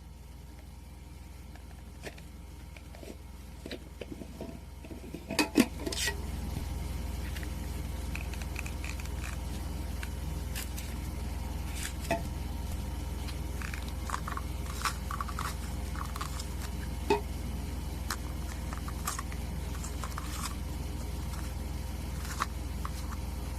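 Light clicks and knocks of a cold brew coffee maker pitcher and its lid being handled, with a cluster of louder knocks about five to six seconds in, over a steady low hum that grows louder at that point.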